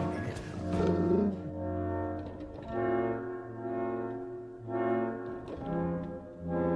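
Orchestral music led by brass, held chords swelling and fading about every two seconds.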